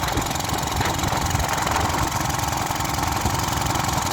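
Small single-cylinder pressure washer engine running steadily on contaminated fuel. It has a rough lope and a knocking note that sounds like a diesel.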